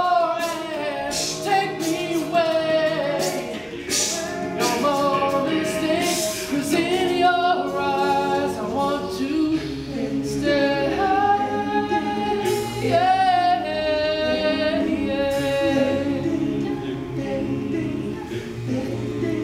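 Men's a cappella group singing in close harmony: a lead line moving over sustained backing chords, with no instruments.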